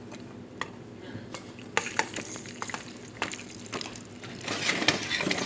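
Leftover microwave popcorn kernels popping in hot oil in a pan: scattered sharp pops over a steady sizzle. The pops come more often and the sizzle grows louder near the end.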